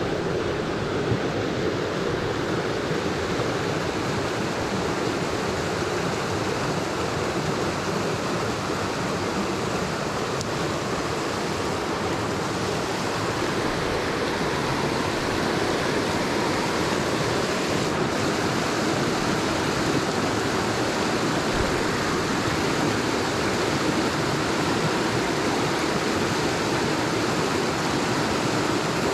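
Mountain stream water rushing in a steady, continuous wash.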